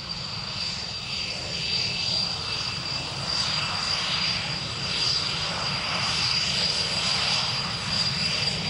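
Jet noise from a Panavia Tornado IDS and its twin RB199 turbofan engines, a steady rush that grows louder over the first couple of seconds and then holds.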